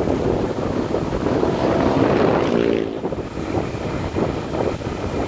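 Wind rushing over the microphone along with a motorcycle running on the move, with a short pitched tone about two and a half seconds in.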